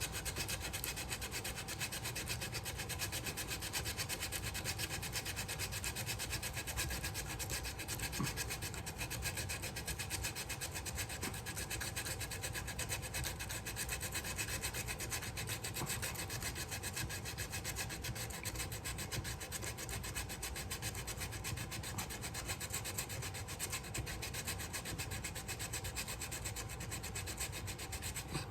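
Sandpaper rubbing on the wood of a bass guitar body in quick, steady back-and-forth strokes, enlarging the control cavity so a 9-volt battery will fit.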